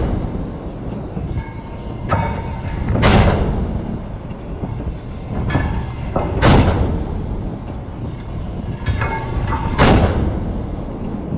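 Arleigh Burke-class destroyer's 5-inch Mk 45 deck gun firing at a steady rate, a shot about every three and a half seconds. Each shot is a loud blast with a rolling echo, led about a second earlier by a short sharp click.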